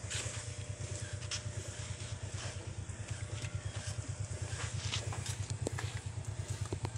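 Potter's wheel spinning with a steady low rumble that pulses rapidly and evenly, with scattered light clicks and taps from hands working a clay pot on it.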